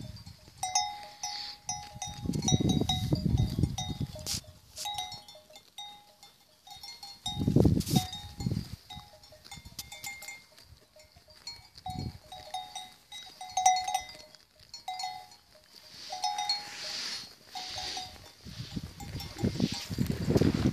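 Bells on a grazing flock of sheep clinking and clanking irregularly throughout, with a few low rumbles coming and going.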